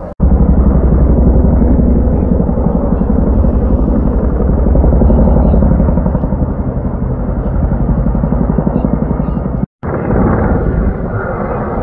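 Helicopter rotor beating steadily in fast, even pulses as a firefighting helicopter flies over. The sound cuts out briefly near the end and rotor noise continues from a different helicopter.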